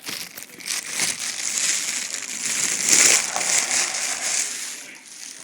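Loud crackling, rustling noise that swells to its loudest about three seconds in and fades near the end.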